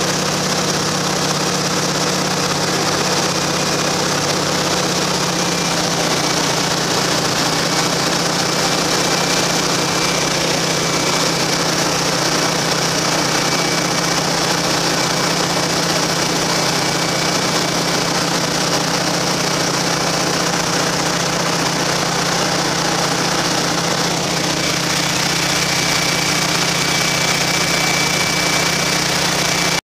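Noorduyn Norseman's radial engine running steadily in flight, heard from inside the cabin with a steady rush of airflow.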